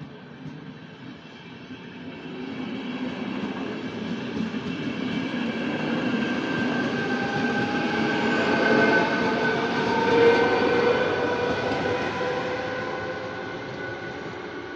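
České dráhy double-deck passenger train running past over a level crossing. It builds to its loudest about nine to ten seconds in, with a steady whine mixed into the rumble, then fades as the train moves off.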